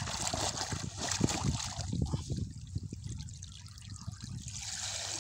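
Water splashing and sloshing as a woven triangular push net is worked through the shallows on a pole. After about two seconds it turns to a quieter trickling and dripping as the net comes up out of the water.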